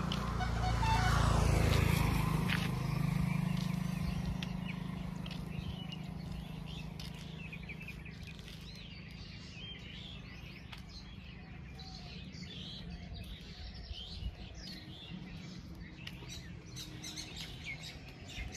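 A road vehicle's engine passes close by, loudest about a second and a half in and fading away over the next few seconds. Birds chirp throughout, heard more plainly once the vehicle has gone.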